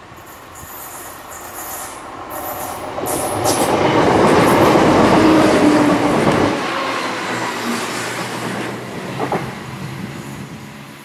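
Class 170 Turbostar diesel multiple unit passing by on the rails: its engines and wheel noise grow louder as it approaches, are loudest about four to six seconds in, then fade as it moves away.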